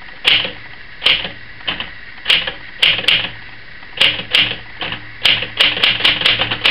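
Typing on a 1960s Smith-Corona Sterling portable typewriter: single sharp key and typebar strikes at an uneven pace, a few tenths of a second to a second apart, coming faster near the end.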